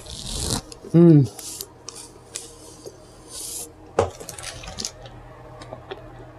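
Crinkling and rustling of fast-food packaging being opened and handled in several short bursts. A short vocal sound falling in pitch comes about a second in, and a sharp knock near four seconds.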